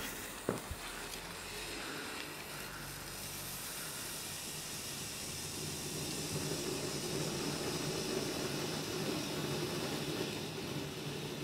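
A firework burning with a steady hiss, a little stronger toward the middle, with one sharp crack about half a second in.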